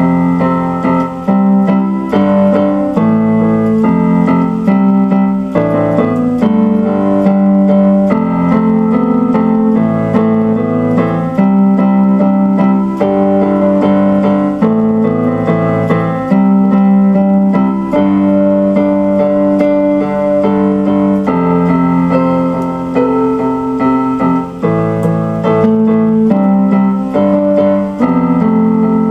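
Electronic keyboard played with a piano sound: a slow instrumental piece of held chords that change every second or two.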